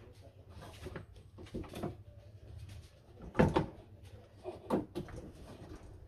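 Clicks and knocks of the Hyundai Starex sliding door's latch and handle parts being worked by hand inside the stripped door, with a sharp knock about three and a half seconds in and another near five seconds.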